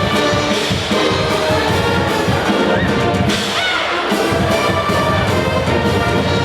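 Brass-led band playing the school song over a steady drum beat.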